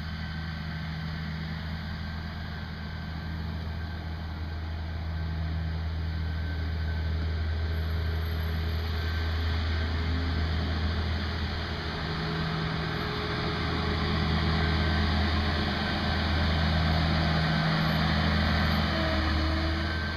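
Case IH 2588 combine running steadily during corn harvest: a low, even diesel engine drone under a broad mechanical rush, getting louder a few seconds in.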